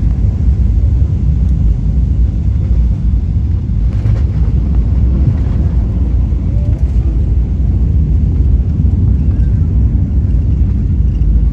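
Steady low rumble of cabin noise inside a Boeing 777-300 airliner.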